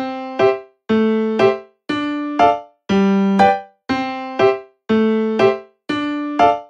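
Background music: a keyboard playing a simple plucky tune in pairs of notes, a longer note then a short one, about once a second with brief gaps between.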